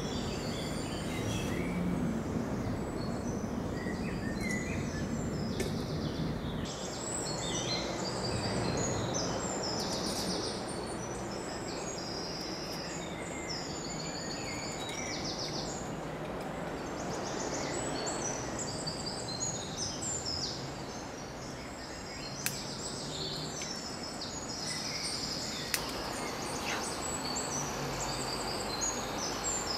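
Many small woodland birds singing and chirping in the tree canopy over a steady background hiss, with two sharp clicks in the last few seconds.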